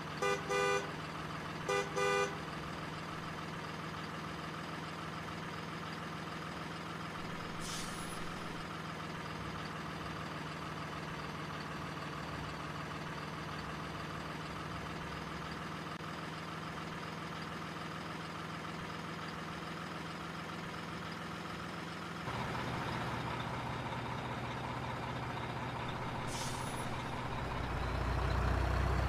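Truck sound effects: a heavy truck engine idling steadily, with two short horn blasts at the start and two brief hisses, about 8 seconds in and near the end. About three-quarters through, the engine sound turns louder and deeper, swelling again near the end.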